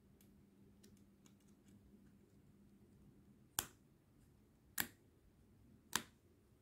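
Three sharp plastic clicks about a second apart from a small remote-control key fob being worked with a thin screwdriver. Fainter ticks of handling come before them.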